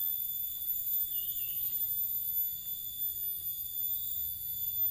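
Steady, high-pitched chorus of insects with no break, over a faint low rumble.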